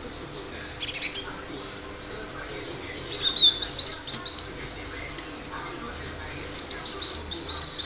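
Cinereous tit (gelatik batu) singing in sharp, high runs of quick notes: a short rapid burst about a second in, a longer run of falling notes from about three to four and a half seconds, and another near the end.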